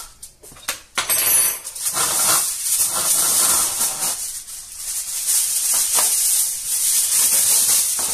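Aluminium foil crinkling and rustling as a sheet is handled, starting about a second in after a brief quiet.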